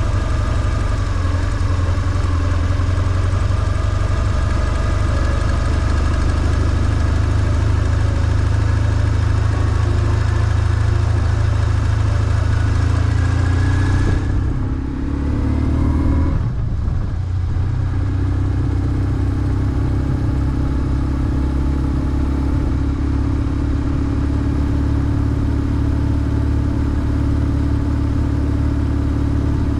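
BMW R1150GS air/oil-cooled boxer twin running under way. Its pitch climbs for a few seconds about halfway through, then the engine note briefly drops away, as on a throttle-off gear change, before it settles back into a steady run.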